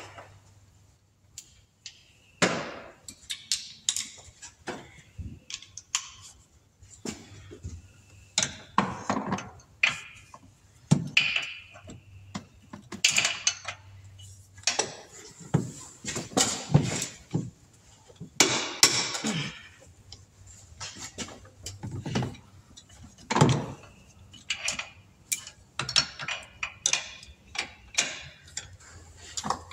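Hand tools working in an engine bay: a long ratchet with an extension clicking, and metal tools clanking and scraping against the engine in irregular clatters.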